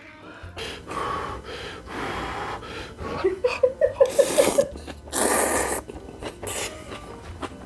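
Mouth sounds of a man eating very spicy instant ramen: hissing, gasping breaths against the heat and noisy slurps of noodles, the loudest slurp about five seconds in.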